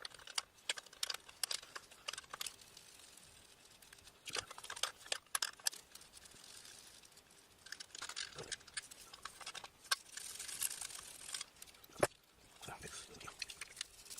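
Irregular small clicks, taps and scraping of hand tools against the metal parts of an airbrush compressor during disassembly, with soft rustling between them and one sharper knock about twelve seconds in.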